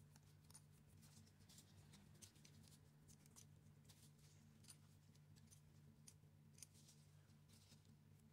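Faint, scratchy ticks of a cotton swab scrubbing in between the metal number wheels of an automatic numbering stamp, over a faint low hum.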